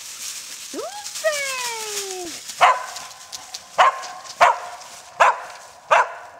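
A dog barking: five single barks about a second apart, after a drawn-out whining call that rises briefly and then slides down in pitch.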